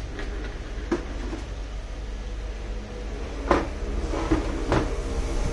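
A handful of short knocks and clacks from hard objects being handled and set down, irregularly spaced and loudest about three and a half seconds in, over a steady low hum.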